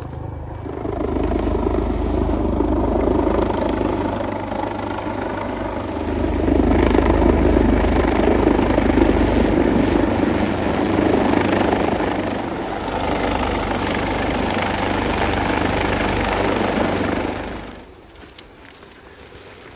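Rescue helicopter's rotor and engine noise, loud and close, swelling a few seconds in and then cutting off suddenly near the end.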